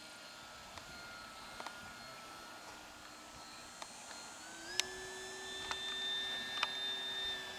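Electric motor and propeller of a radio-controlled foam model airplane whining steadily in flight, stepping up in pitch a little over halfway through as the throttle is opened, with a few faint clicks.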